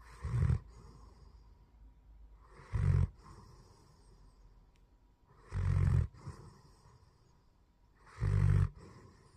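German shepherd snoring in its sleep: four loud, low snores about every two and a half to three seconds, with soft breathing between them.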